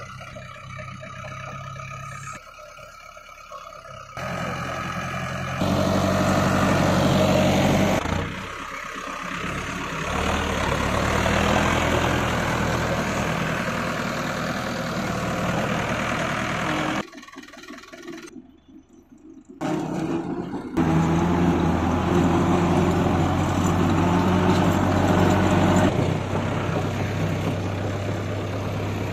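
Tractor engine running with a steady low hum. Its level changes abruptly several times and drops away briefly about two-thirds of the way through.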